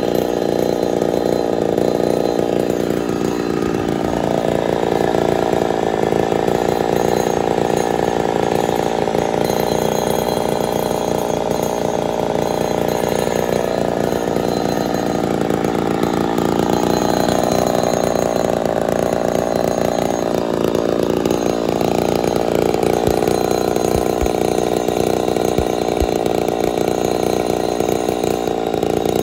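Ported Poulan 245A two-stroke chainsaw running steadily on its own, its engine pitch wavering slightly a couple of times.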